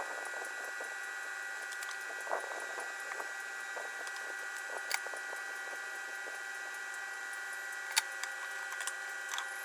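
A few light clicks and taps of a small circuit board and its thin wires being handled, over a steady high-pitched electrical whine.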